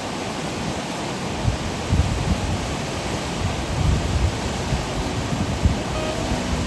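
Steady rushing outdoor noise, with irregular gusts of wind buffeting the microphone. Faint guitar music starts to come in near the end.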